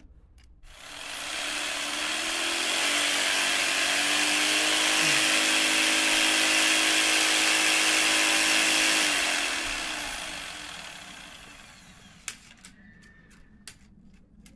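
Handheld electric jigsaw running with its blade driving a rod pendulum up and down fast, a Kapitza pendulum. The saw starts about a second in, runs steadily for about eight seconds, then dies away over the next few seconds, with a few light clicks near the end.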